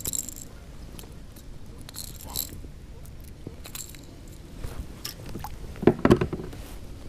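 Handling noises of a freshly caught bass in a kayak: scattered clicks and short rattles, with a cluster of louder knocks about six seconds in.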